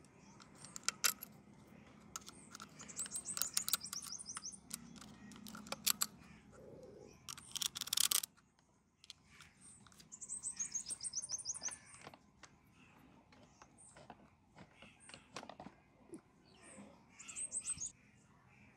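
A bird singing in the background, three runs of quick repeated high chirps, over scattered light clicks and taps of metal engine parts being handled. A short loud rustling noise comes just before the middle.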